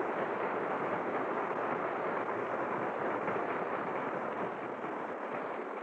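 Steady roar of aircraft engines, a radio-drama sound effect, holding even and easing off slightly near the end.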